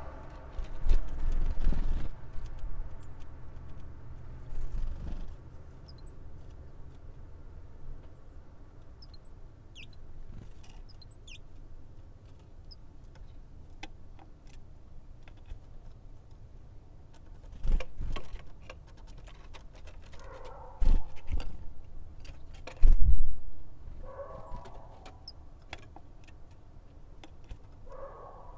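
Great tits at a wooden seed feeder: a few faint, thin high calls, with several dull thumps and knocks from the birds landing on and pecking at the tray.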